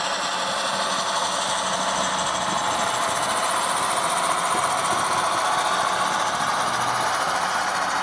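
HO-scale model train running steadily along the track, with a mechanical running noise from its motor and wheels.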